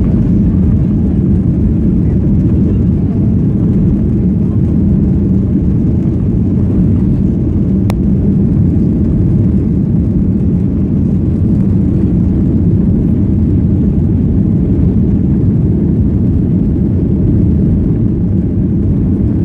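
Steady low drone and rumble of a Boeing 737-800 heard from inside the cabin as it taxis, its CFM56 engines running at low power. A single faint click about 8 seconds in.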